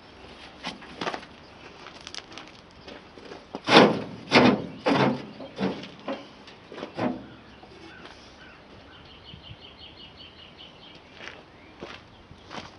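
Hand tools knocking and clanking on the metal of a corn picker while a new drive belt is adjusted: a string of sharp knocks, loudest around the middle, then a run of quick light clicks near the end.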